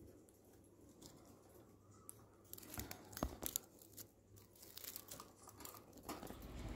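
Faint, irregular scratching and clicking close to the microphone as a kakariki parakeet climbs up to the camera and touches it with its beak and feet, thickest in the middle seconds.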